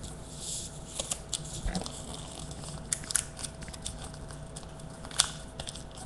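Origami paper being folded and creased by hand: scattered soft crinkles and clicks, with one sharper snap about five seconds in, over a faint steady hum.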